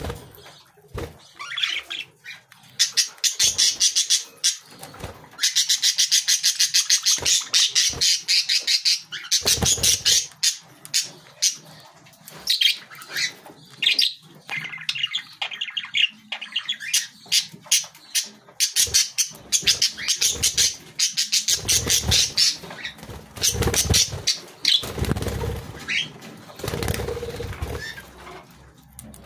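Budgerigars chattering and warbling: fast runs of clicks and squeaky chirps. Some duller, lower thumps come in the last several seconds.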